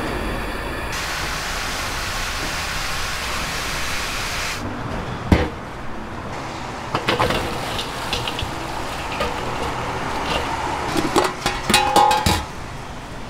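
Commercial gas burner under a stockpot, its flame giving a steady rushing noise for the first few seconds. Then come kitchen handling sounds: a sharp clank of stainless steel about five seconds in, and a run of clicks and knocks of metal containers near the end.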